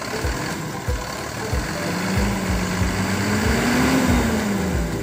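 Mitsubishi Fuso 10-wheeler truck's diesel engine running, revved once about two seconds in, its pitch rising and then falling back. A regular low thump, about three every two seconds, sounds underneath.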